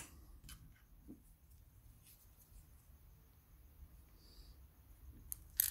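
Faint, scattered clicks and taps of small plastic phone parts being handled and fitted into a Samsung Galaxy A8's frame, with one sharper click just before the end, over a low steady hum.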